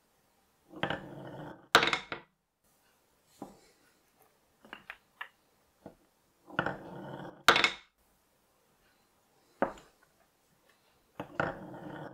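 Marbles rolling one at a time down a wooden chute, each a second-long rumble ending in a sharp clack as it drops into a wooden bowl of marbles; it happens twice, and a third roll starts near the end. Faint taps come between the runs.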